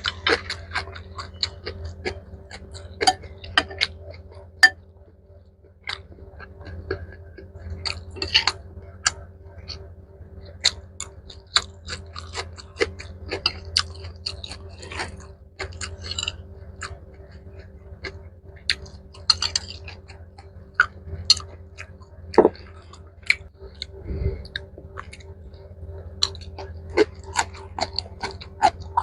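Close-miked chewing of mixed rice with mustard-green kimchi, a run of irregular sharp wet mouth clicks over a steady low hum.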